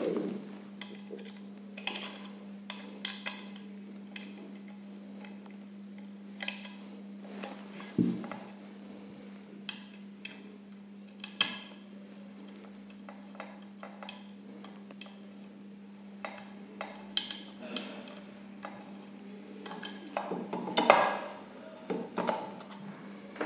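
Small clicks and clatter of a plastic door-station housing being handled and unscrewed with its special key, with a louder knock about eight seconds in. A steady low hum runs underneath.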